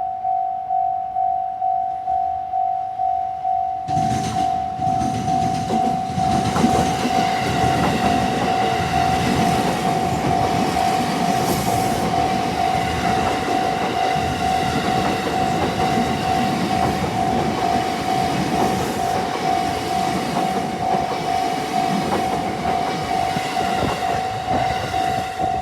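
Japanese railway level-crossing warning bell ringing in steady pulses about twice a second. About four seconds in, a train starts passing over the crossing, with wheels clattering over the rail joints, and it runs on under the bell.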